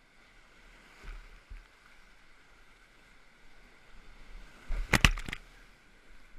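Big whitewater rapids rushing steadily around a kayak at high water. Two sharp splashing hits come about a second in, and a louder burst of splashing hits around five seconds in.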